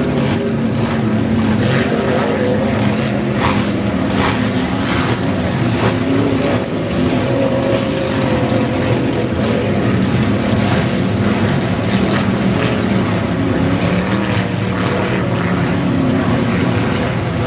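Engines of 5-litre class inboard racing hydroplanes running flat out, a loud, continuous drone whose pitch wavers up and down as the boats go by.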